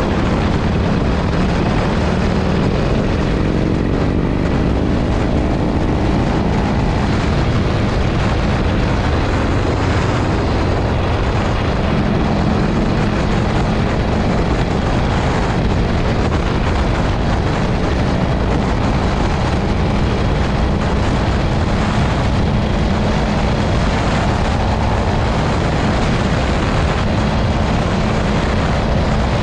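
Harley-Davidson V-twin motorcycle engine and exhaust running steadily under way, a loud, even drone. Its pitch rises and falls slightly in the first several seconds.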